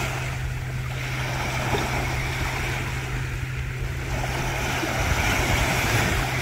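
Surf washing onto the beach: a steady rushing noise.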